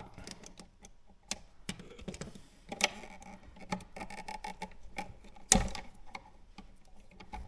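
Irregular light clicks and taps of a tool and wires at a wall outlet as its wires are disconnected from the terminal screws, with one louder knock about five and a half seconds in.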